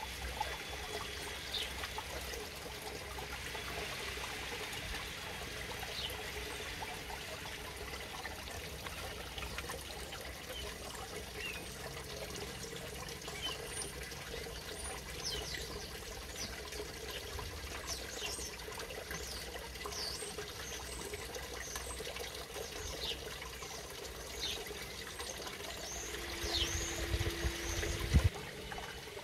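Steady trickle and splash of water from a garden pond's water feature, with short high chirps scattered through it and a few low rumbles near the end.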